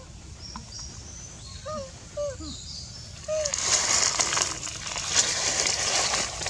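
Baby macaque crying softly: a few faint, short whimpering calls, each rising and falling quickly, during the first three seconds. About halfway through, a louder crackling hiss takes over.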